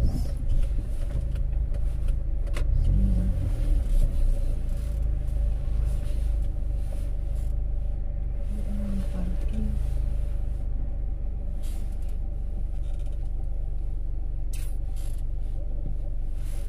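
Car engine and tyre rumble heard from inside the cabin as the car rolls slowly across a yard, bumpier for the first few seconds and then steadier.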